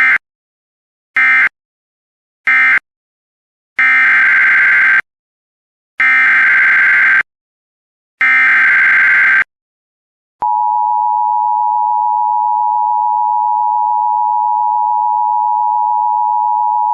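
Emergency Alert System tones: three short warbling digital data bursts, then three longer ones, each separated by silence. From about ten seconds in, the steady two-tone EAS attention signal sounds, a harsh chord of two close pitches.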